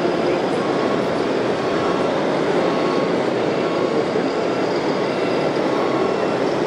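Steady rumbling vehicle-like noise from RC model trucks and tractors running on a layout, mixed with the din of a busy exhibition hall.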